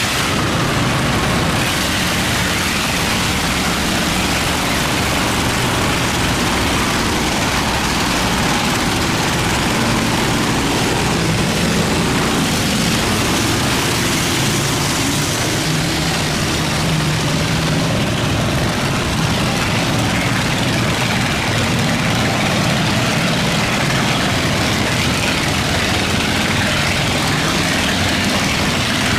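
Boat engines running as boats pass through a canal sluice gate, their low note shifting slowly in pitch over the steady rush of fast-flowing water.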